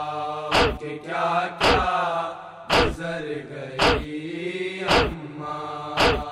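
A Muharram noha, an Urdu mourning lament, chanted by a solo voice holding long notes. A sharp, slap-like beat falls about once a second.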